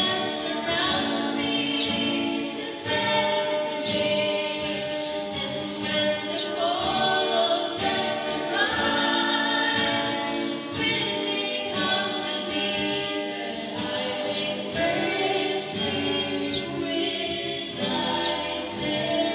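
Music: a choir singing, with held notes that change every second or so.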